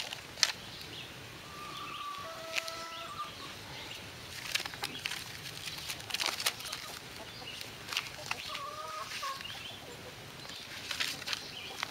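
Sheets of a thick stack of printer paper being handled, lifted and leafed through by hand, with irregular rustles and crackles. Two short tonal calls sound in the background, about two seconds in and again about nine seconds in.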